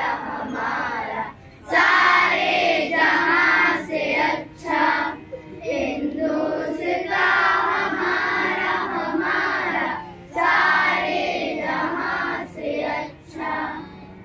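A group of children singing together in phrases, with short breaks between lines.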